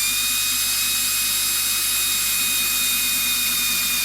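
Electric drill running at a steady high whine, boring through the plastic catch that locks a pool-cleaner wheel onto its axle.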